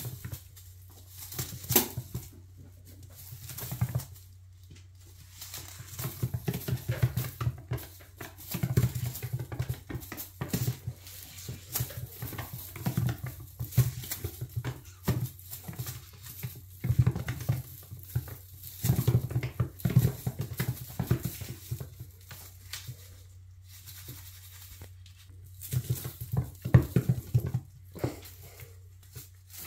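Bengal kitten scampering and pouncing on a granite countertop: irregular flurries of paw taps and claw scrabbles on the stone, mixed with the teaser toy knocking and rustling, over a low steady hum.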